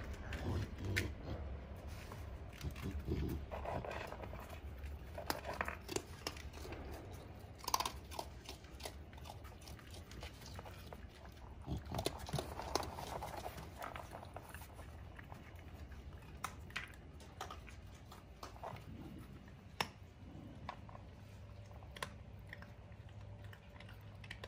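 Raccoons, a mother and her kits, at close range, chewing and scuffling. Many small clicks and scratches are scattered throughout, with a few soft calls passing between them.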